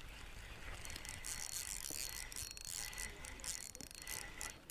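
Spinning reel being cranked steadily, its gears whirring and rasping as line is reeled in with a hooked trout on.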